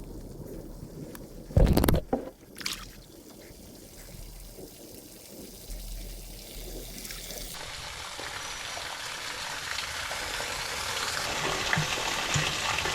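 Two sharp knocks early on, then water running, a rushing sound that grows steadily louder over the last several seconds.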